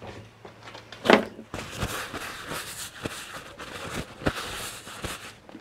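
Rustling and crumpling of a paper shop towel being handled, with a few light clicks and knocks from metal gear-train parts on the bench and a brief louder noise about a second in.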